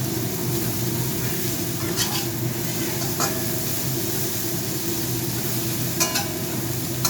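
Chicken legs and onion sizzling as they are stir-fried in a hot pan, over a steady hum. A spatula scrapes and clinks against the pan three times, about two, three and six seconds in.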